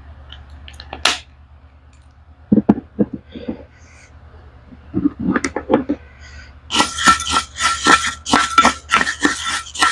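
Scattered clicks and short rustling crunches of dry roasted rice grains being handled and scooped with a plastic ladle, then from about two-thirds in a loud, steady rhythm of crunching, about three to four a second, as a mouthful of hard roasted raw rice is chewed.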